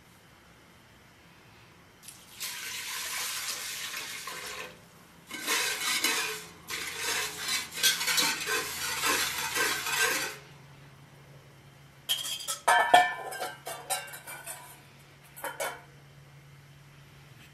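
A metal spoon stirring rice pudding in a cooking pot, scraping in quick rhythmic strokes, after about two seconds of steady hiss. Later a run of sharp metal clinks and taps as the spoon and utensils knock against the pot.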